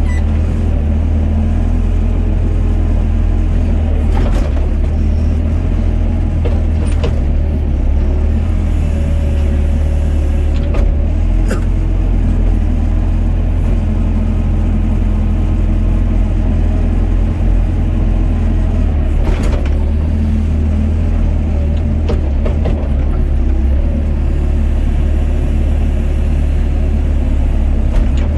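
Doosan DX55 mini excavator's diesel engine running steadily with a heavy low rumble, heard from the cab while the bucket digs a trench. A few short knocks sound along the way.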